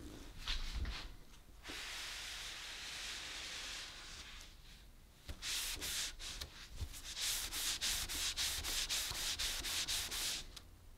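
Fluffy cloth rubbing over an oil-finished walnut block: a long steady wipe in the first few seconds, then fast back-and-forth buffing strokes, about three or four a second, through the second half.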